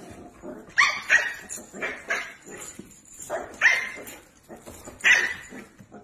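A dog barking: a series of short, sharp barks coming in quick clusters.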